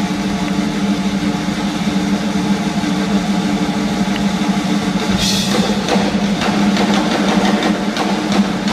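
Live band music led by a drum kit over a sustained low chord, with a cymbal crash about five seconds in, heard from the audience in a large, reverberant concert hall.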